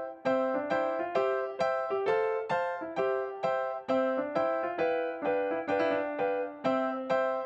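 Background music: a bright piano or electric-piano melody of quick plucked-sounding notes, several a second, each note fading before the next.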